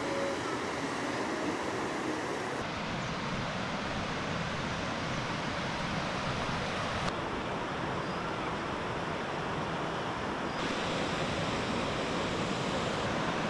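Fast-flowing mountain river rushing over rocks: a steady water roar.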